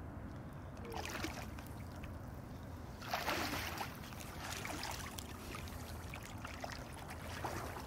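Shallow river water sloshing and splashing around a large white sturgeon held by the tail for release. The splashing picks up about a second in and grows louder about three seconds in, over a steady low rumble.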